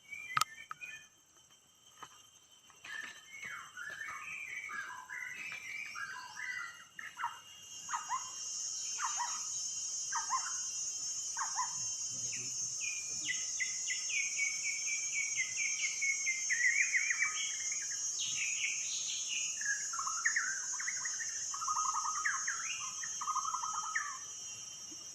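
White-rumped shama singing a long, varied run of quick phrases. A steady high insect drone joins about eight seconds in.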